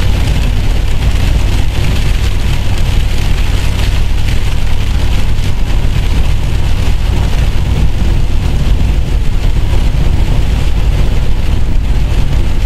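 Car driving in rain, heard from inside the cabin: a steady low drone of engine and road noise under the hiss of rain and tyres on the wet road.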